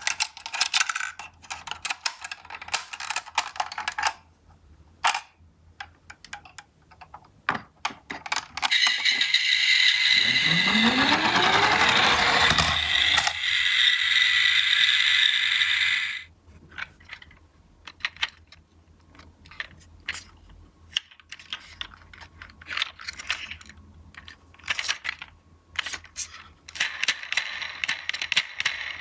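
Toy ambulance minicars clicking and clattering as they are handled and roll down a slope. A toy ambulance's electronic siren sounds loudly for about seven seconds in the middle, and a shorter siren sounds near the end.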